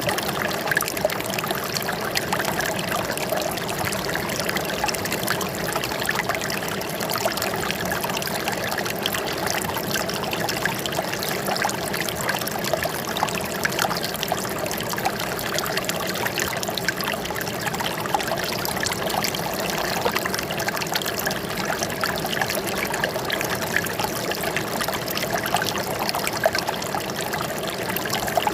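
Flowing water trickling steadily, with a dense patter of small splashes and no change in level.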